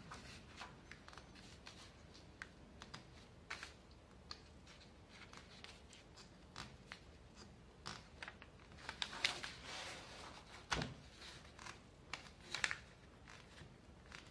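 Faint, irregular clicks and scratchy rustles of thread being wound by hand around the small nails of a string-art board and pulled taut, with one soft knock about three-quarters of the way through.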